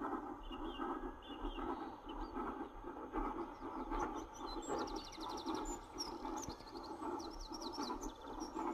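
LNER V2 class 2-6-2 steam locomotive working hard uphill with a heavy freight, its exhaust beat steady and rhythmic. Small birds chirp and trill over it, mostly in the second half.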